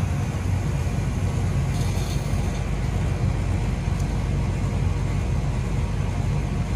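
Outdoor condensing unit of a split air conditioner running, its compressor and condenser fan giving a steady low hum while the system is being topped up with R410A refrigerant.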